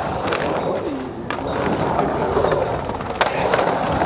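Skateboard wheels rolling on the bare concrete of an empty swimming pool. There are a few sharp clicks, the loudest about three seconds in.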